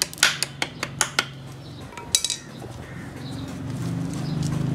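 A spanner tapping quickly on the electric starter motor of a Yamaha LC135 engine, about five metallic taps a second for the first second. Near the end a low motor hum builds and grows louder as the starter begins to turn. The tapping frees a starter whose carbon brushes are worn thin.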